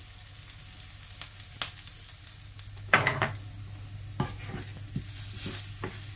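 Sliced red onions sizzling as they caramelise in a small frying pan, stirred with a spatula that knocks and scrapes against the pan several times, loudest about three seconds in.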